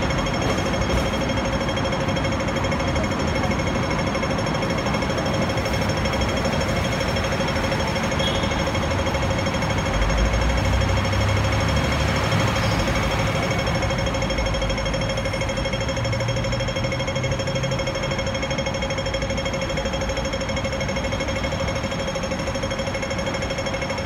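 Hong Kong pedestrian crossing signal ticking rapidly and without a break during the green-man phase, the audible cue that it is safe to cross. Traffic rumbles underneath, louder about ten seconds in as a heavy vehicle passes.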